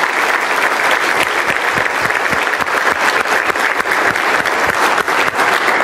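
A large crowd applauding, many hands clapping steadily.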